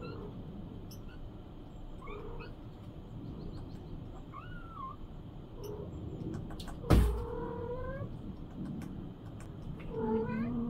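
A mother cat calling her kittens with short meows, one every second or two, some sliding up and down in pitch. There is a single sharp knock about seven seconds in.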